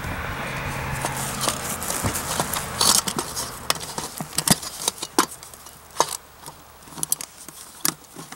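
Parts of a camping stove cook set being handled and nested together: a string of sharp clicks and knocks, with a hissing noise through the first three seconds.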